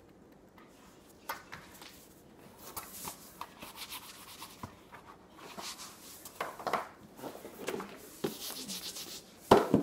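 Handling noises of plastic markers and a board: rubbing, clicks and light knocks, with one loud, sharp knock near the end.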